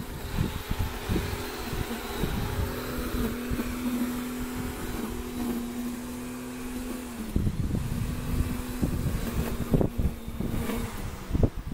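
Wind buffeting the microphone with irregular low rumbles and thumps, over a steady motor hum that weakens about seven seconds in.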